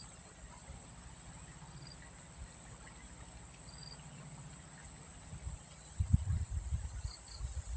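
Steady high-pitched drone of insects, with a few short high chirps. From about six seconds in, irregular low rumbling thumps come in and become the loudest sound.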